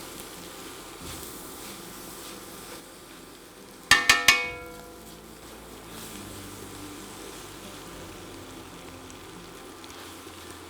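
Pad thai frying in a pan with a steady low sizzle. About four seconds in comes a quick cluster of sharp, ringing metallic taps, like a utensil knocked against the pan.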